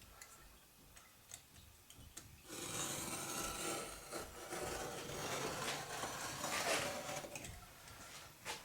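Rough, uneven rubbing and rasping of hand work on wood, starting about two and a half seconds in and lasting about five seconds.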